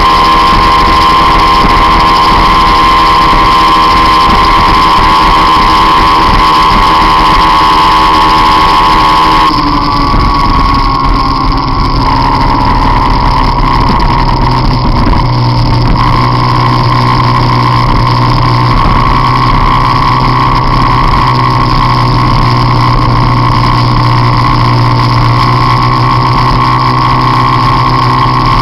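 Peugeot Jetforce Compressor scooter engine running hard at high revs, heard from a camera mounted on the scooter, with a steady high whine over the engine note. About ten seconds in, the revs drop, then the engine holds steady again at a slightly lower pitch.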